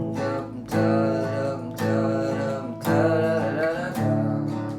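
Music: a song's instrumental accompaniment between sung lines, with a new chord struck about once a second.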